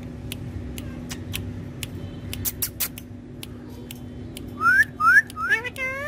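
Indian ringneck parrot whistling: after scattered sharp clicks, it gives four quick rising whistles near the end, then a longer, fuller rising call.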